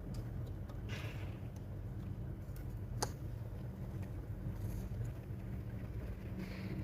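Faint handling of laptop parts while an SSD is being fitted, over a steady low hum, with one sharp click about three seconds in.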